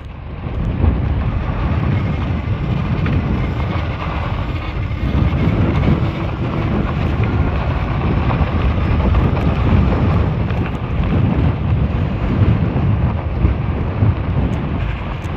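Steady wind rushing over a helmet-mounted microphone while riding a fat-tire e-bike at speed over a rough dirt road.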